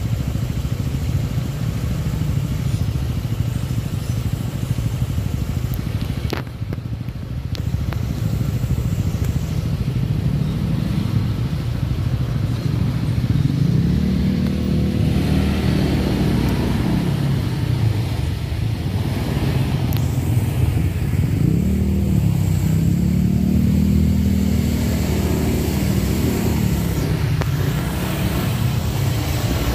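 Motorcycle engine running while riding, over a steady low rumble; in the second half its pitch rises and falls several times as the throttle is opened and closed.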